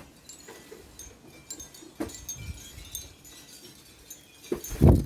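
Wind chimes tinkling lightly, with a low thump near the end.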